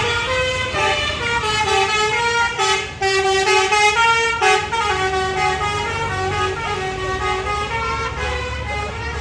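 Indonesian bus 'telolet' musical horn playing a tune of stepping notes, several horn tones sounding together, over the low rumble of the bus.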